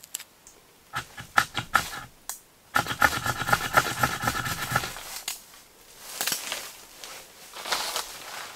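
Dry twigs snapping in quick runs of sharp cracks, densest about three to five seconds in, followed by softer crackling as a small kindling fire catches.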